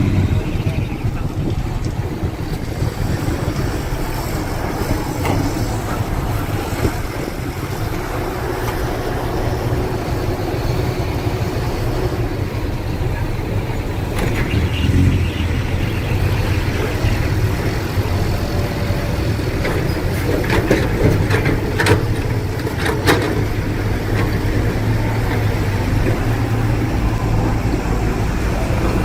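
Heavy diesel machinery engine running steadily under a low drone, with a few sharp knocks and clanks in the second half.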